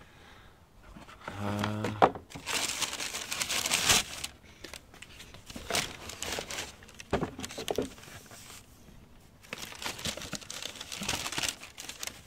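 Tissue paper wrapped around new sneakers crinkling and rustling in irregular bursts as it is handled in the shoebox.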